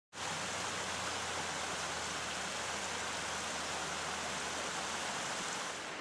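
Mountain stream running over boulders in small cascades: a steady, even rush of water.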